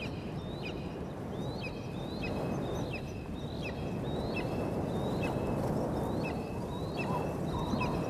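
Juvenile black (Verreaux's) eagle begging for food: a short high call that rises and then drops, repeated about every half second, over a steady low rushing background.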